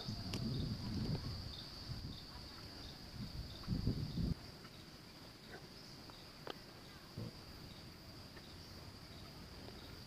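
Quiet handling noise of a small round Bluetooth speaker and its circuit board being turned in the hands: low rubbing bumps near the start and again about four seconds in, then a few faint clicks, over a steady high-pitched tone.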